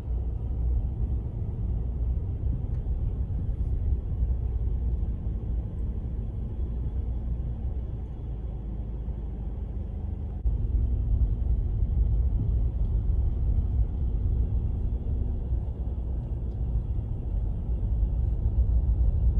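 Low, steady rumble of a car's engine and road noise heard from inside the cabin as it drives slowly through traffic, growing louder about halfway through.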